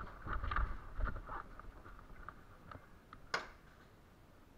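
Footsteps and gear movement of an airsoft player crossing a hard floor strewn with BBs, a cluster of thumps and small crackles in the first second and a half, then scattered clicks. A single sharp click about three seconds in.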